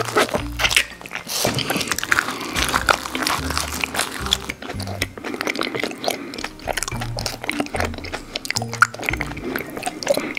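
Close-miked mouth sounds of biting and chewing, full of quick crisp crackles, over background music with a low bass line.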